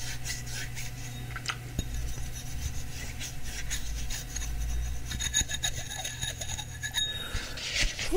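Repeated rubbing and scrubbing strokes, like cleaning with a cloth or brush, with a few light clicks and a low steady hum beneath.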